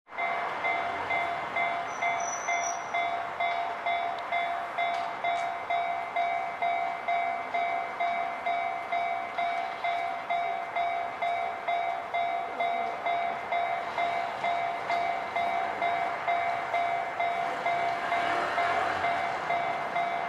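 Japanese railway level-crossing alarm ringing its electronic bell in an even, unbroken rhythm of about two strokes a second.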